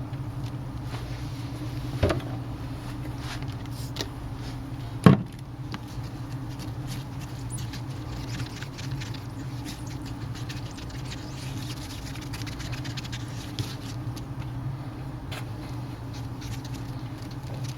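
Light rubbing and patting on a tablet's glass touchscreen as it is wiped clean, over a steady low hum, with a click about two seconds in and a sharper knock about five seconds in.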